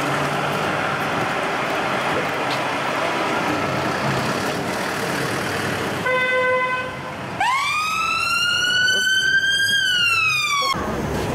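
Street traffic noise, then a short steady horn-like tone, then an emergency-vehicle siren wailing: it sweeps up in pitch, holds for a couple of seconds, and falls away again.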